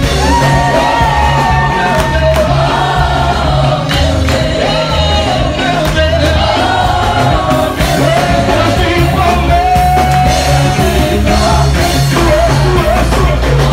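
Live gospel worship music: women's voices singing a melody into microphones over keyboard and a drum kit, loud and amplified.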